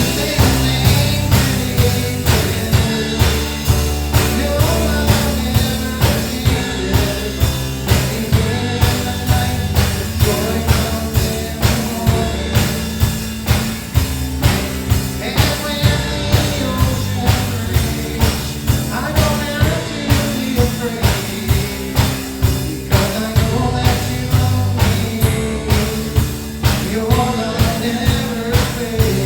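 Church worship band playing a rock-style song with a steady drum-kit beat, with singing over it.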